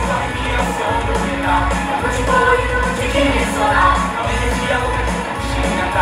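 Pop-rock music with singing over a steady beat.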